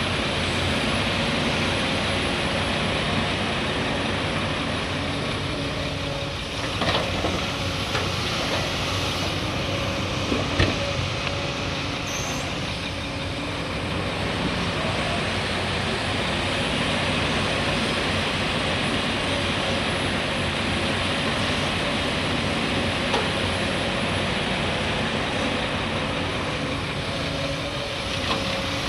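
Heavy excavator's diesel engine running steadily under working load, with a steady tone over it and a few short knocks, the loudest about ten and a half seconds in.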